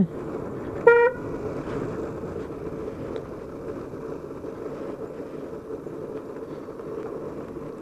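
Motorcycle riding along a hill road: steady engine and road noise, with one short horn toot about a second in.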